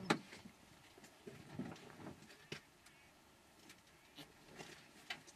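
A few faint, sharp knocks and clicks over low rustling: the loudest comes just after the start, with others about halfway through and near the end.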